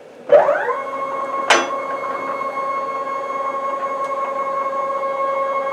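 CNC router's stepper motors jogging the gantry: a whine rises in pitch as the motors speed up, then holds a steady tone. One sharp click about a second and a half in.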